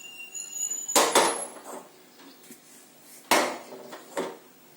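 A utensil knocking and scraping against a kadai while dry-roasted little millet is tipped out onto a plate: a sharp clank about a second in, a second clank about three seconds in, and a smaller knock just after.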